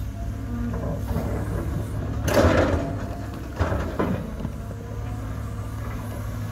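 Cat 320 hydraulic excavator's diesel engine running steadily while its bucket digs into rocky soil, with a loud burst of scraping and clattering rock about two seconds in and a shorter one near four seconds.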